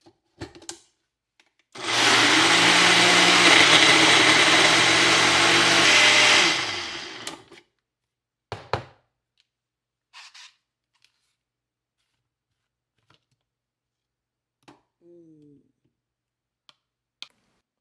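Countertop blender running for about five seconds, blending a frozen-fruit smoothie, then its motor spinning down. A sharp knock and a few faint clicks follow.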